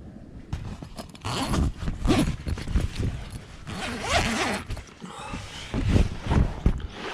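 Footsteps squelching and sliding through wet, slick mud, an uneven run of sucking, ripping steps with low thuds.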